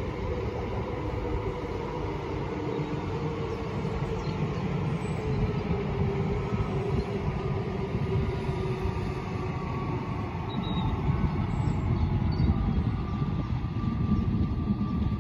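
RER C double-deck electric commuter train running past on the line below and moving away: a steady rumble of wheels on the rails with a faint humming tone.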